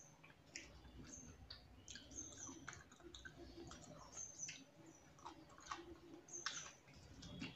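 Faint eating sounds from a person eating rice and egg curry by hand: irregular soft, wet clicks of fingers mixing rice on a plate and of chewing with lip smacks.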